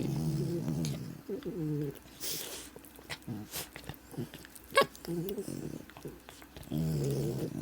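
Pet dogs vocalizing as they play, several drawn-out low pitched calls in short stretches, with a sharp click about five seconds in.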